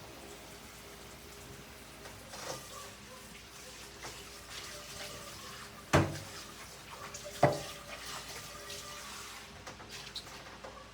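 Kitchen tap running into a sink as a low, steady hiss, with a light clatter and then two sharp knocks about six and seven and a half seconds in.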